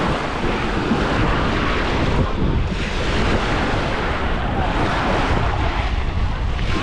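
Surf washing onto a sandy beach, with wind buffeting the microphone in a steady rumble.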